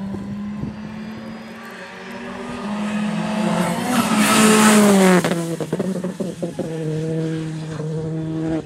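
Citroën C3 R5 rally car's turbocharged four-cylinder engine running hard as it comes past on a wet road. It builds to its loudest about four seconds in, with tyres hissing through the water. The engine note then drops sharply as it goes by, followed by a run of sharp crackles as it pulls away.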